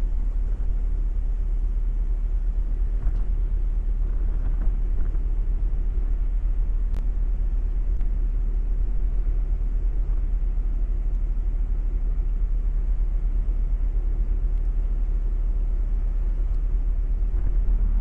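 Steady low rumble on the open deck of the cruise ferry Viking Amorella as she moves through sea ice.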